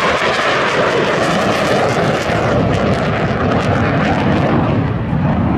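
Fighter jet flying past at full power: a loud, steady rush of jet engine noise with a crackling edge.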